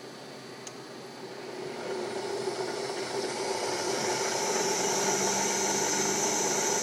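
Harrison Alpha 550 CNC lathe's spindle drive and headstock gearing starting up in the low speed range. A steady mechanical hum and whine grows louder over about the first few seconds as the chuck comes up to speed, then runs steadily.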